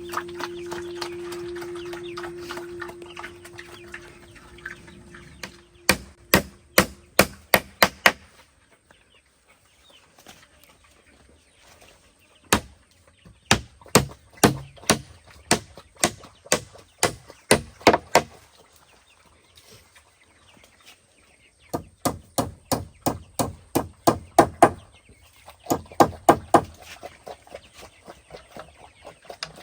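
Runs of quick, sharp chopping strikes, about three to four a second, with pauses between the runs. Background music fades out in the first few seconds.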